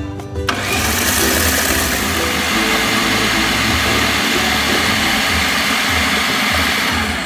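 Electric food processor motor running, grinding fried peanuts and spices with a little water into a thick paste. It switches on about half a second in and runs steadily until just before the end.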